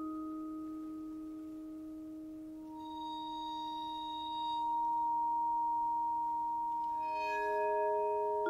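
Vibraphone bars bowed with a bass bow, giving long, pure, sustained tones that overlap. A higher note swells in about three seconds in, and two lower notes join near the end.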